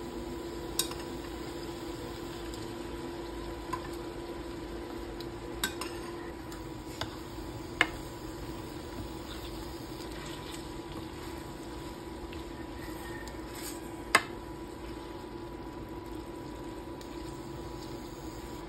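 Pasta being tossed and stirred in a stainless steel skillet with metal tongs and a wooden spoon, with a handful of sharp clinks of utensil on pan over a steady low hum.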